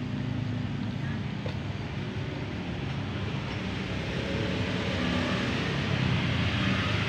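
Steady background noise: a low hum under an even hiss, growing slightly louder about halfway through.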